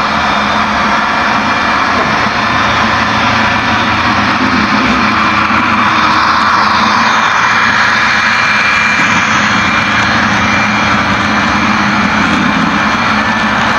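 HO-scale model freight train, led by a BNSF diesel locomotive, rolling past close by: a steady rumble of wheels on the track with a faint motor hum, loudest as the locomotive goes by about six seconds in.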